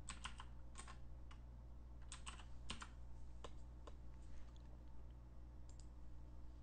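Computer keyboard being typed on: a run of faint, irregular keystrokes over about the first four seconds as a file name is entered, then two more clicks near the end. A low steady hum runs underneath.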